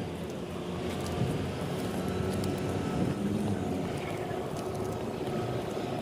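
Steady low rumble of outdoor noise while walking beside a road: wind on the microphone mixed with traffic.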